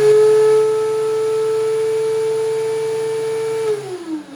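DeWalt DW735 thickness planer running empty with a steady high whine, then switched off about three and a half seconds in, the whine falling in pitch as the motor and cutterhead wind down.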